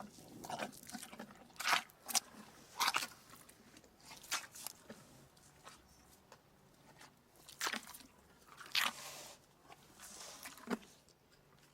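Chewing and biting on something crunchy: about ten short, sharp crunches at irregular intervals.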